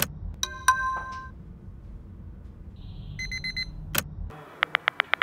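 Smartphone alarm tone going off as a quick burst of high beeps, cut off by a click as it is tapped off, with a short run of rising chime tones after the first click. About three seconds in the same beeping alarm sounds again and is clicked off. Near the end a quick run of light tap clicks follows, like typing on the phone's keyboard.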